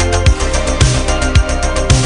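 Background electronic music with a heavy bass line and a steady thumping beat, about two beats a second.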